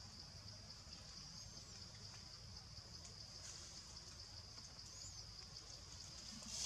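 Faint steady high-pitched insect drone of forest crickets or cicadas, with a couple of brief faint chirps over it.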